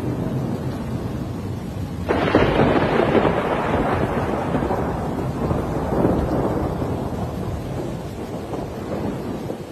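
A thunderclap breaks suddenly about two seconds in and rolls on, fading slowly over several seconds, over the steady noise of a heavy rainstorm.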